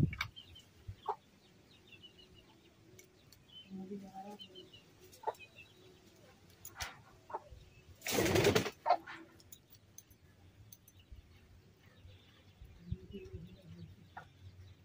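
Birds chirping faintly, with scattered small clicks and knocks, and a loud noisy burst lasting about half a second around the middle.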